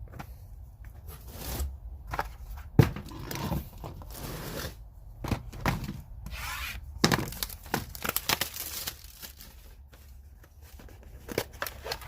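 Packaging being torn and crinkled by hand while a socket set is unpacked, in irregular rustling bursts with several sharp clicks and knocks, the loudest click about three seconds in.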